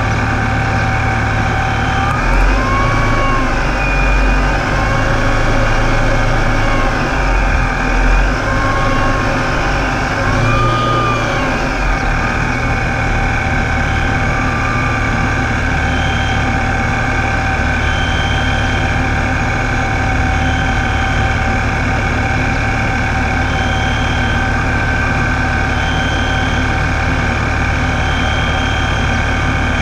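Supercharged engine running in gear at low idle with a steady high whine from the Ripp supercharger, which the owner suspects is a bad bearing. In the first dozen seconds the whine rises and falls in pitch several times, then holds steady. In the second half a short high tone repeats about every two seconds.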